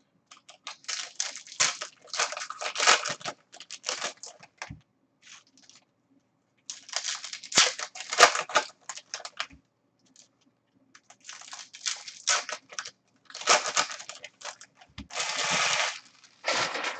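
Trading-card pack wrappers being torn open and crinkled by hand, in repeated bursts of ripping and rustling with short pauses between them, and cards being handled.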